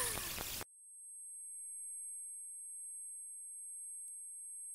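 Steady high-pitched electronic ringing, several pure tones held together, starting when a noisy sound cuts off abruptly under a second in. A faint tick comes near the end.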